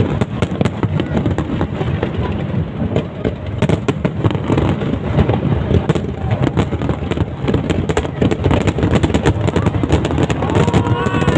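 Fireworks display going off: a dense, continuous run of pops and crackles over heavy low booming.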